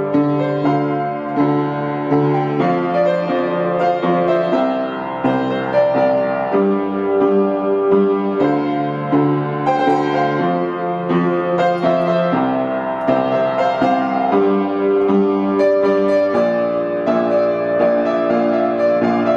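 Background music played on a piano-like keyboard: sustained chords that change every second or two.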